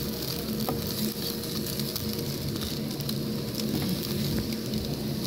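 Slices of meat loaf and beaten egg sizzling in a nonstick frying pan, with a wooden spatula scraping and tapping against the pan now and then.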